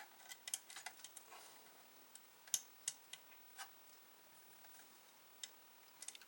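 Scattered light clicks and taps, irregular and sharp, the loudest about two and a half seconds in: small parts of a floppy disk drive being handled and fitted together during reassembly.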